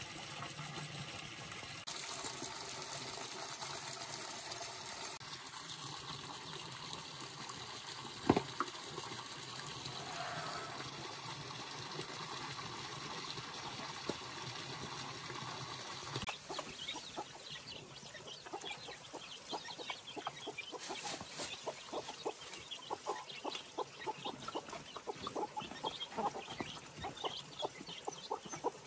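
A steady rushing noise with a single sharp knock about eight seconds in, then, about halfway through, chickens clucking in a dense patter of short calls.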